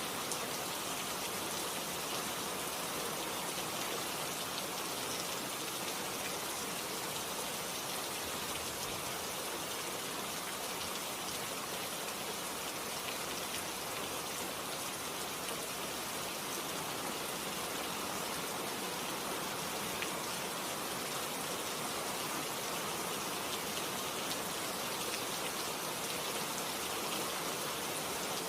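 Steady rainfall: an even hiss of rain with an occasional single louder drop.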